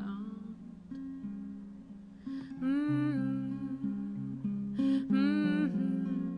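Live singer-songwriter music: acoustic guitar playing a steady run of plucked notes, with a woman's voice singing two long, wavering phrases without clear words, about two and a half and five seconds in.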